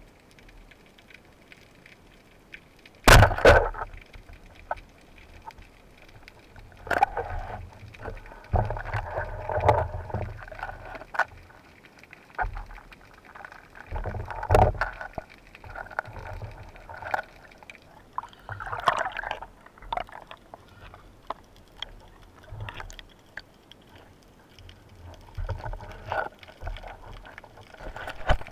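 Band-powered speargun firing underwater: a single sharp, loud crack about three seconds in. After it come irregular bursts of splashing, bubbling and water rushing over the camera housing as the diver moves and handles the speared sea bass.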